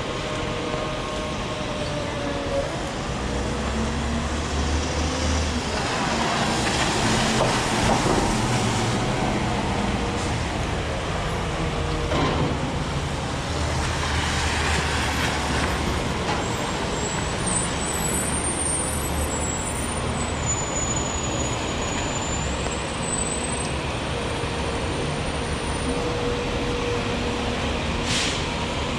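Heavy rain and city traffic on a wet street. Tyre hiss swells as vehicles pass, most strongly about seven and fifteen seconds in, over the low running of heavy engines such as trucks or buses.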